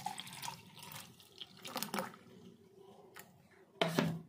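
Milkshake being poured into a glass in a few short splashes, with a louder thump shortly before the end.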